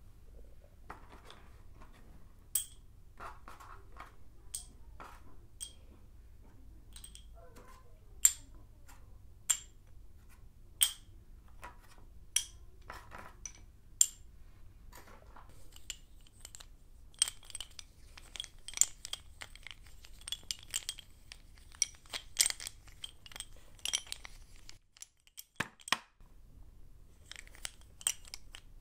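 Sticks of blackboard chalk clinking against one another as they are dropped and stacked, each landing as a sharp, high, ringing clink. The clinks come singly about a second apart at first, then thicker and faster in the second half, with a short pause near the end.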